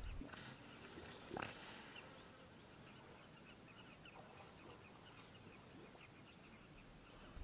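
Near silence with faint wildlife ambience: two brief rustling noises in the first second and a half, then a quiet run of short, high chirps.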